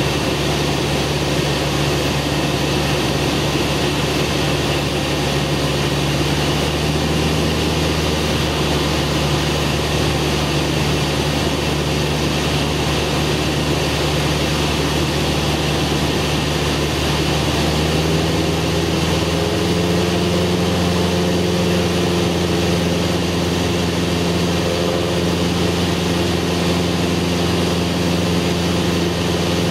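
Cessna 172's piston engine and propeller droning steadily, heard from inside the cabin. The engine note steps up slightly about two-thirds of the way through and holds.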